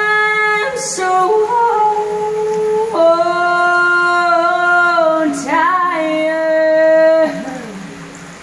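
A woman singing a cappella inside a concrete drainage pipe, holding long notes in two phrases with a quick breath between them.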